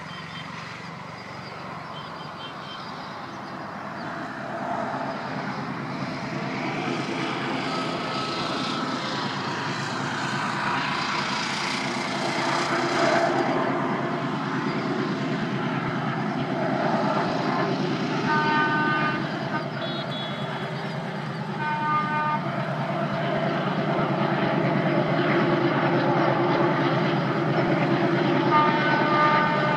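Pair of ALCo diesel locomotives running, their engines growing louder as they approach. The locomotive horn sounds in short blasts about two-thirds of the way through and again near the end.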